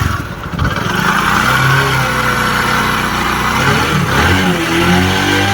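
Freshly rebuilt Bajaj Discover 100cc single-cylinder four-stroke motorcycle engine running smoothly at idle, then revved up about four seconds in. The engine has been rebored and fitted with a new crankshaft, crank bearings, piston, valves, rockers and camshaft, which has cured its noise problem.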